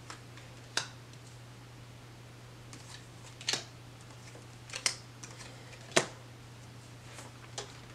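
Tarot cards being laid down and snapped onto a table: about half a dozen sharp snaps and taps at irregular intervals over a steady low hum.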